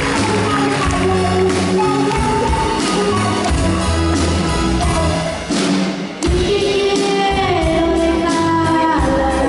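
A young female singer with a live band: electric bass, electric guitar, drum kit and keyboard. The band thins out briefly about five and a half seconds in, then comes back in full.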